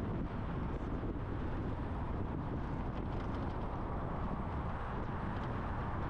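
Steady road noise of a truck driving along: tyre rumble and wind noise holding at an even level, with a few faint ticks.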